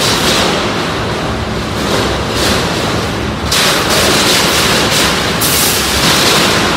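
Loud combat-robot fight in the arena: a constant wash of noise with several stretches of harsher hiss and clatter as the robots drive, flip and hit each other on the steel floor.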